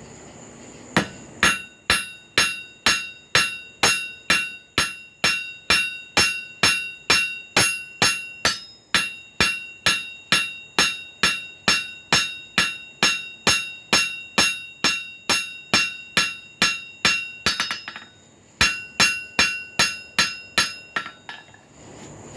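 Forging hammer flattening a hot carbon-steel cut nail on an anvil: steady, evenly paced blows about two and a half a second, each with a bright metallic ring. The hammering breaks off briefly near the end, then a few more blows follow.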